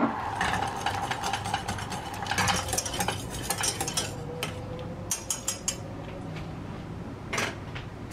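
Metal wire whisk stirring cream into hot caramel in a stainless steel saucepan, the wires rattling and scraping against the pan in quick strokes over a low sizzle. The strokes stop about six seconds in, and one sharper clink follows near the end.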